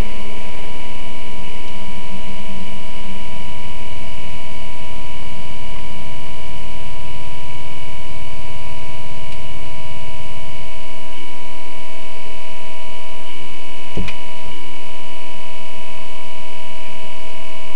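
Steady, loud hum with fixed tones inside the cabin of a Hummer rally truck standing still. The low rumble underneath drops away about eleven seconds in, and there is a single knock near fourteen seconds.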